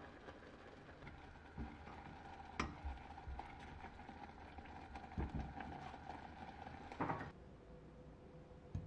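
Thick mango compote simmering with a faint bubbling in a ceramic saucepan while a silicone spatula stirs it, knocking softly against the pot four times. The last knock comes with a short scrape. The bubbling then stops short and a single click follows near the end.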